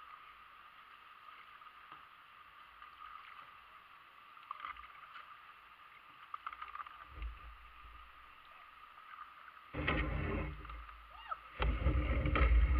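Kayak moving down a shallow creek, with a steady faint rippling of water. About ten seconds in, and again near the end, come loud bouts of low rumbling and knocking as the hull runs into the shallow riffle.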